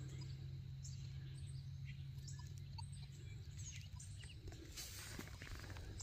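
Faint rustling and crumbling of soil as a clod of dirt is broken apart by hand, over a low steady rumble, with a few faint bird chirps.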